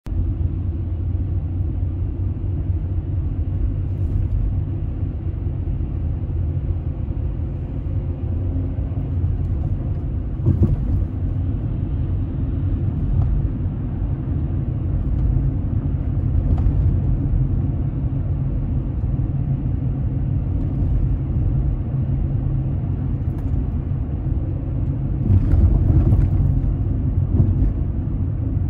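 Road noise of a car driving: a steady low rumble of tyres on the road, with a brief knock about ten seconds in and a louder, knockier stretch near the end.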